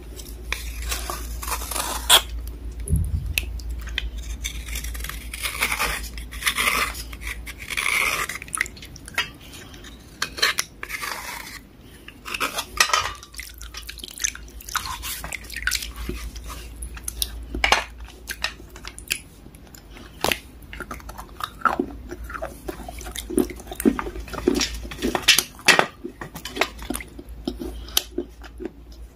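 A kitchen knife blade scraping and clicking against a water-soaked black bar, in many short scratchy strokes, with splashes and drips from the bowl of water it is held over.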